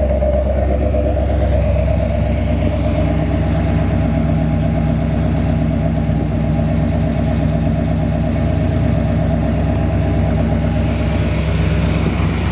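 1969 Corvette's rebuilt 350 small-block V8 with a new carburetor, idling steadily.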